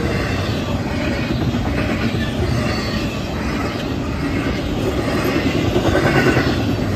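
Norfolk Southern double-stack intermodal train's well cars rolling past close by, steel wheels rumbling and clattering steadily on the rails, swelling a little about six seconds in.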